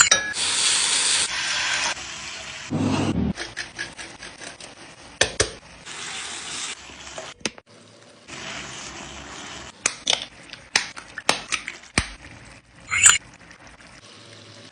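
Food sizzling in a frying pan in several short stretches, with sharp clicks and knocks of a utensil against the pan between them and a low thud about three seconds in.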